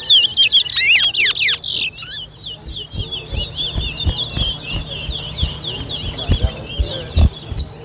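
Towa-towa seed finch singing: loud sweeping whistled notes for about two seconds, then a fast chattering warble, with a few low thumps.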